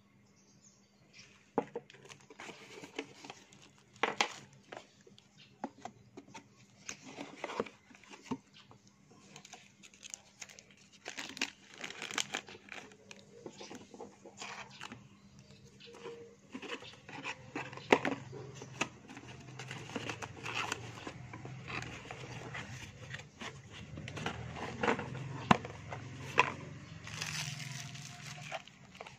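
Hands handling a cardboard box and crinkling clear plastic wrapping, with scattered clicks, taps and rustles. A low hum joins about halfway through.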